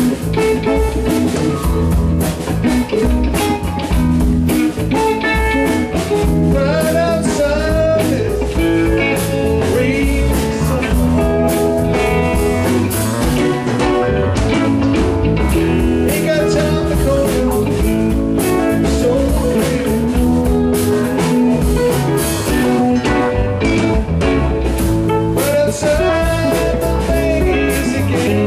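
Live rock band playing a bluesy song: electric guitar over a steady drum beat, with some bending guitar or vocal lines.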